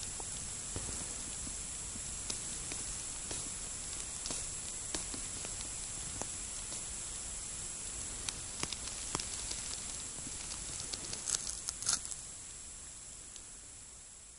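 Steady hiss with scattered small clicks and taps, a few louder ones clustered about eleven to twelve seconds in, fading away near the end.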